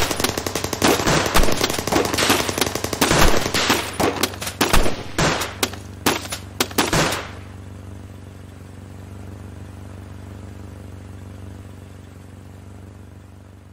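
Gunfire sound effect: a rapid, irregular volley of many shots, automatic fire mixed with single rifle shots, lasting about seven seconds and then stopping. A low, steady hum continues underneath and slowly fades.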